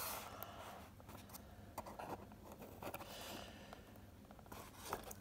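Faint rustling and light scraping of fingers handling a thin card model roof, with a few small clicks.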